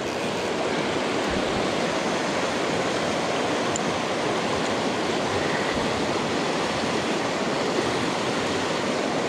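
River water rushing steadily over a shallow riverbed.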